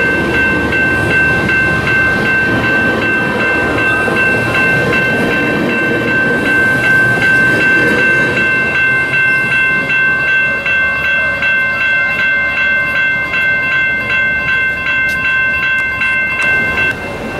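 Railroad grade-crossing warning bell ringing, about two strokes a second, while a Metrolink commuter train rolls past over the rails. The train's rumble fades about halfway through, and the bell stops near the end.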